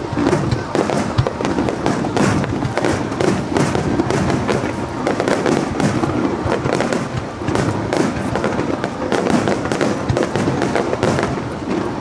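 Aerial fireworks bursting in a rapid, continuous barrage, with many bangs and crackles packed close together.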